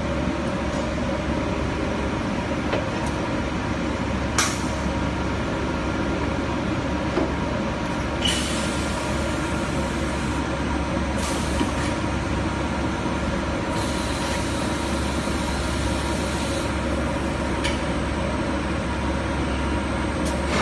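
Intermac laminated-glass cutting table running with a steady machine hum, a sharp click about four seconds in, and a few short stretches of hiss.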